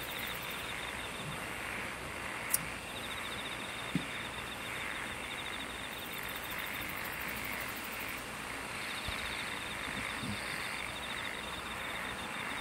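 Insects trilling in a steady outdoor chorus: rapid, evenly pulsed trills that start and stop over an even hiss. A sharp click comes about two and a half seconds in, and a soft knock at about four seconds.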